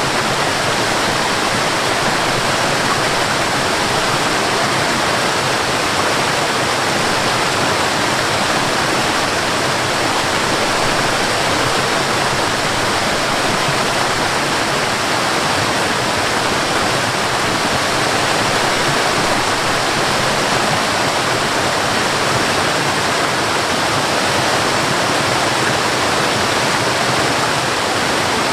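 Flowing water rushing steadily, a continuous even hiss with no breaks or changes.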